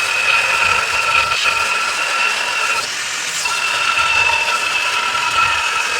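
Angle grinder with a worn cut-off disc cutting the point into a rebar steel blade: a loud steady hiss with a high whine over it, the whine dropping out briefly about three seconds in.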